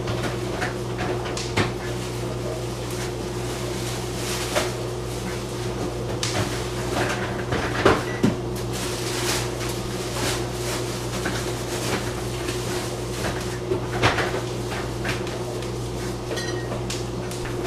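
Kitchen handling sounds: cupboard doors opening and closing and scattered sharp knocks of things being set down, over a steady low hum.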